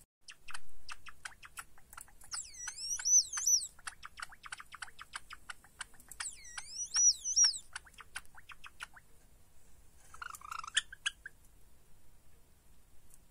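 Java sparrow song: a long run of rapid dry clicking notes twice rising into a loud warbling, whining whistle, then a brief squeaky call near the end.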